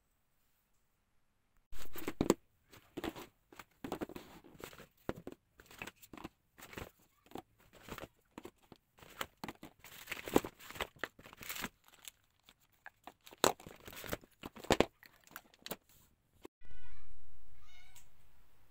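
Packaging being torn open and crinkled by hand in a long run of irregular rips and rustles. Near the end a sudden louder noise sets in and fades away over about two seconds.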